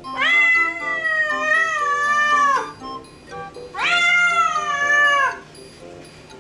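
Domestic cat giving two long, drawn-out plaintive meows, the first about two and a half seconds long and the second shorter, each trailing down in pitch at the end.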